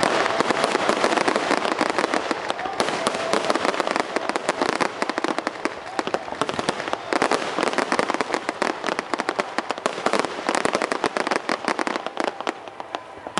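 Fireworks going off in a dense, continuous crackle of many rapid small bangs, thinning a little near the end.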